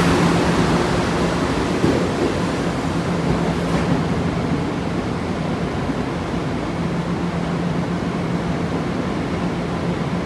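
Long Island Rail Road M3 electric train rumbling away through the tunnel, a steady low hum over an even noise that slowly fades.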